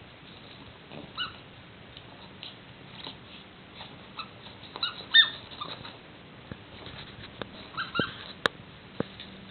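Small Yorkie–Chihuahua mix dog at play with a toy frog on a rug: several short high-pitched squeaks, the loudest about five seconds in, over soft scuffling, with two sharp clicks near the end.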